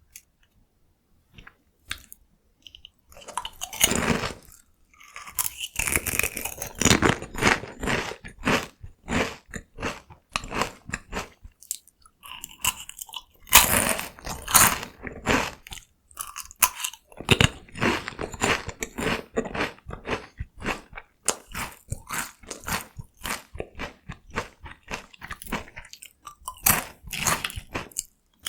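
Close-miked crunching and chewing of Kkokkal-cone, a Korean cone-shaped corn snack: runs of crisp crunches with short pauses. The crunching begins about three seconds in, after a few faint clicks.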